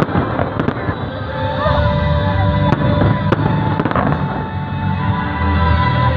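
Aerial fireworks going off: a continuous low rumble of booms with several sharp cracks, and music playing along.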